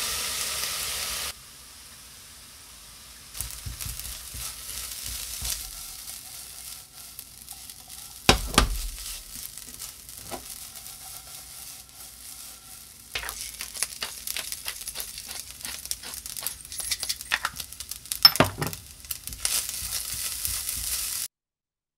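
Spam and egg fried rice frying in a nonstick pan: a loud burst of sizzling as soy sauce hits the hot pan stops about a second in, then a silicone spatula stirs and scrapes the rice with soft sizzling and a few sharp knocks against the pan, the loudest a little past 8 seconds and near 18 seconds. Stops abruptly about a second before the end.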